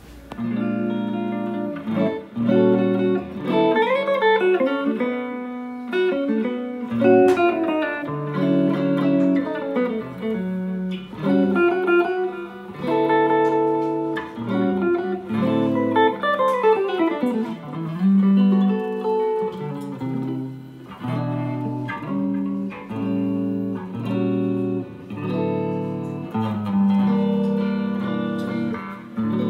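1968 Gibson Les Paul Goldtop electric guitar with P-90 pickups being test-played after its restoration. It plays melodic single-note lines, with notes bending and sliding in pitch, mixed with chords.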